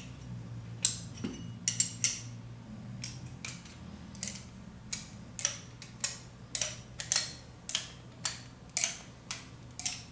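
Sharp metal clinks, about two a second, as a steel pin spanner wrench is set into the spanner holes of a stainless steel valve actuator top closure and the closure is turned down on its threads.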